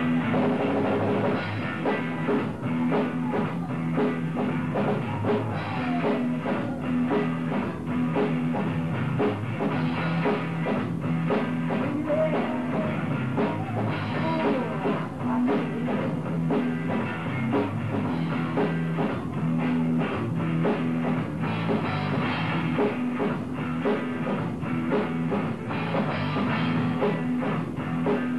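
Rock band playing live: electric guitar over a driving drum kit and a repeating low bass line, an instrumental passage without singing.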